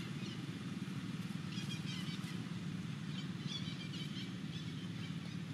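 A steady low hum, like a motor running, with small birds chirping in two short runs of high notes, about a second and a half in and again about three and a half seconds in.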